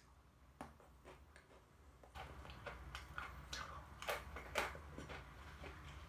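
Close-up crunching as an almond Pepero, a chocolate-coated biscuit stick, is bitten and chewed: a run of irregular crisp crunches, sparse at first and denser and louder after about two seconds.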